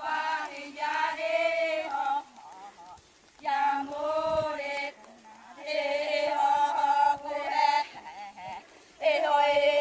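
Several voices chanting together in long, wavering held notes, in phrases of about one to two seconds broken by short pauses.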